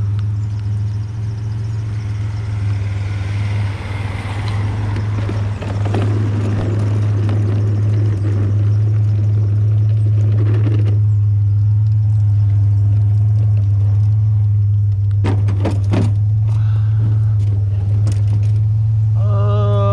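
Truck engine running steadily with a constant low drone, heard from inside the cab. For several seconds in the first half, tyre hiss on wet road rises and then stops about eleven seconds in. A few sharp clicks follow near the end.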